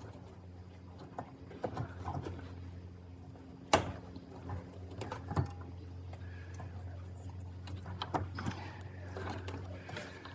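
Hands working in a tight space behind a car headlight, twisting a halogen bulb in its socket: scattered small plastic clicks and scrapes, with one sharper click about three and a half seconds in, over a steady low hum.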